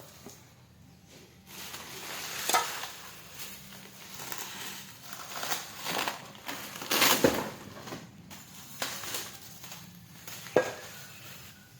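Packaging being unwrapped: plastic and cardboard crinkling and rustling, with a few sharp knocks, the loudest about seven seconds in.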